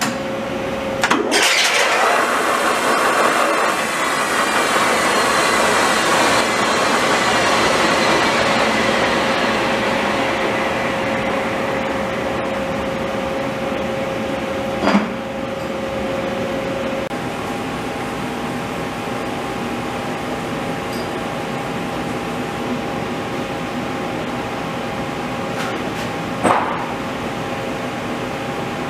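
Romi Bridgeport EZ Path CNC lathe running under power: a steady machine whine whose higher tones slide down in pitch over the first several seconds, and whose main note steps up about halfway through. Sharp clicks come about a second in, about halfway, and near the end.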